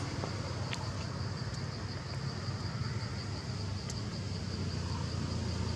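Steady outdoor background noise: a low rumble under a thin, steady high-pitched drone, with a couple of faint clicks, one about a second in and one near four seconds.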